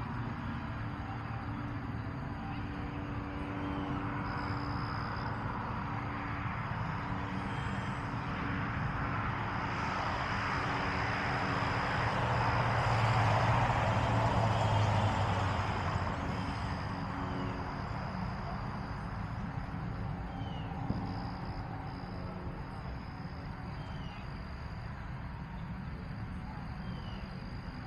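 A car passing on a road, its tyre and engine noise swelling to a peak about halfway through and fading away, over a high, steady insect trill that comes and goes.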